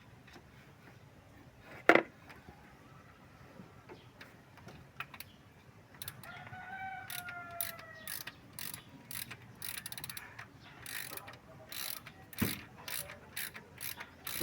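Hand tools working on an engine: a sharp metallic knock about two seconds in, then runs of ratchet-like clicking and rattling through the second half. A rooster crows once, falling in pitch, about six seconds in.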